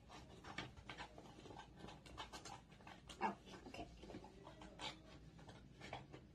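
Faint, irregular rustling and clicking of paper being handled and cut with scissors, with a slightly louder snip or crinkle a little after three seconds in.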